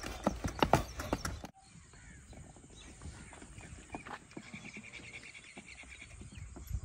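Hoofbeats of a white horse, ridden at speed along a dirt track, close and loud for about a second and a half, then cut off abruptly. A quiet stretch follows with faint distant sounds and a faint steady high tone for a couple of seconds.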